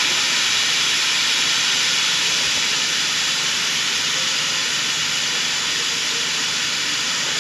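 A steady, even hiss with no rhythm or pitch.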